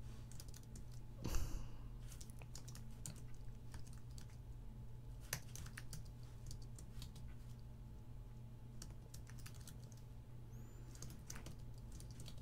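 Typing on a computer keyboard: irregular key clicks as code is entered, over a steady low hum, with one brief louder noise a little over a second in.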